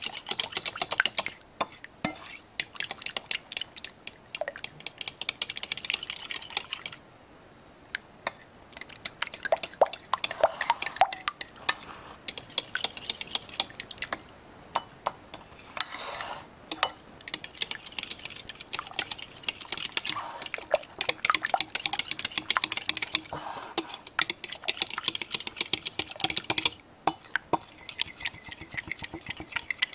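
A metal utensil briskly beating runny pumpkin pie filling in a ceramic bowl: fast, rapid clinks against the bowl, in several spells broken by short pauses.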